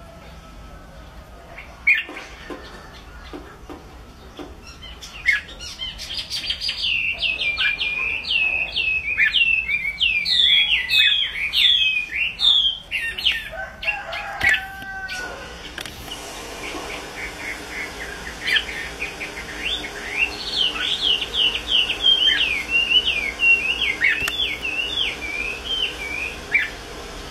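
Caged Chinese hwamei (họa mi) singing in rapid runs of varied, gliding whistled notes. The song comes in two bouts: a loud one starting about five seconds in, and a softer one in the second half. A sharp click sounds about two seconds in.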